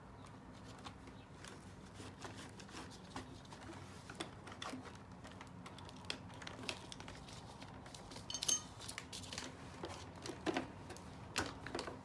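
Scattered light clicks and taps of plastic as hands handle the underside and side brush of an upturned Roborock robot vacuum, with a few sharper clicks near the end.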